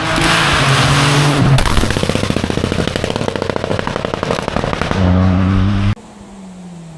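Rally car engine at full throttle, then lifting off about a second and a half in, with a few seconds of rapid popping and crackling from the exhaust on the overrun before it comes back on the throttle. Near the end the sound cuts off suddenly to a much quieter engine hum.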